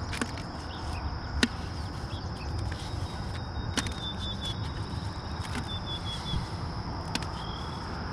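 A few sharp metallic clicks as a magnet-fishing magnet and a recovered bolt are handled at a bucket; the clearest come about one and a half and four seconds in. Under them runs a steady low wind noise, with faint bird chirps.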